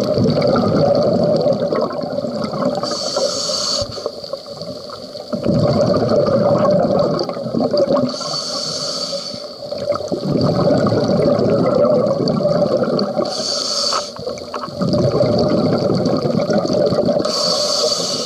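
Scuba breathing through a regulator, heard underwater: about four short hissing inhales, each followed by a few seconds of bubbling exhaust bubbles.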